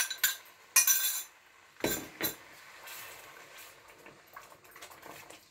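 Water tipped from a glass bowl into a pan of cooked spice paste and stirred in with a wooden spatula. There is a short splash about a second in, then glass clinks and two knocks around two seconds in, then faint stirring.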